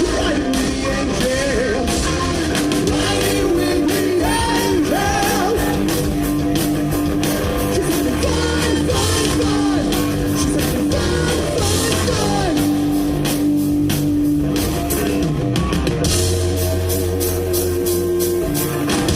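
Rock band playing, with singing over electric guitar and drum kit.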